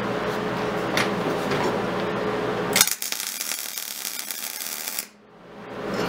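MIG welder making a short tack weld on steel: the arc starts with a sharp crack about three seconds in, crackles and sizzles for about two seconds, then cuts off suddenly.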